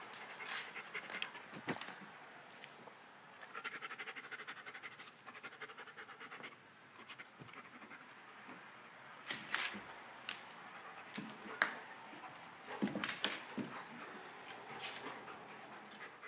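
A dog panting rapidly while it tussles with a cat, with several sharp scuffling knocks in the second half.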